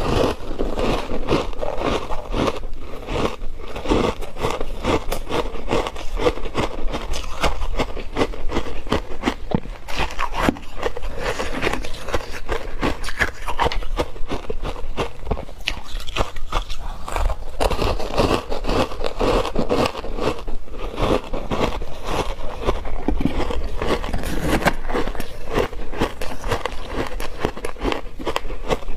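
Someone crunching and chewing chunks of hard ice coated in matcha milk powder, a dense unbroken run of crackling crunches.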